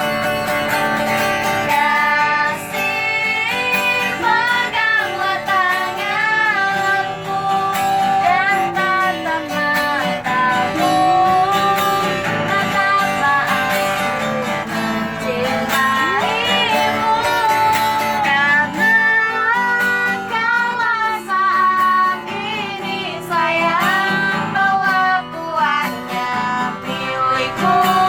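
A busker singing a melodic song with a wavering, vibrato-laden voice over a strummed acoustic guitar.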